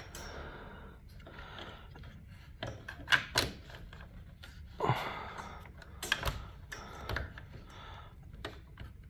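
Scattered clicks and knocks from a garage door opener's drive chain and sprocket being pulled and worked by hand to get slack in the chain; the loudest pair comes about three seconds in, another knock about five seconds in.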